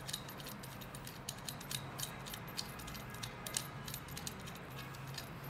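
Light metallic clicks and rattles of an inductive sensor being screwed out of its extruder mount by hand, the loosened threads and nut ticking irregularly as it turns.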